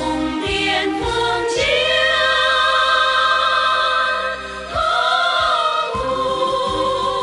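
Female vocal group singing long held notes in harmony over instrumental accompaniment with low drum hits. The voices dip briefly a little past the middle, then come back in on a new phrase.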